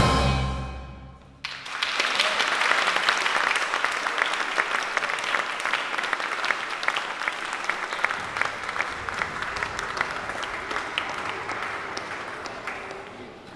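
The final chord of a piece of music dies away, and about a second and a half in an audience breaks into applause. The clapping is dense at first, then thins and fades out near the end.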